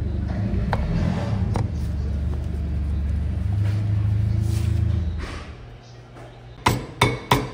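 A steady low motor rumble fades away about five seconds in. Near the end, sharp hammer blows on metal begin, about three a second, seating the impeller on the pump shaft.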